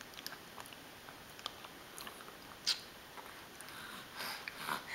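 A baby's faint mouth noises while it eats in its sleep: small wet lip smacks and sucking clicks, with a sharper click a little before three seconds in and a cluster of smacks near the end.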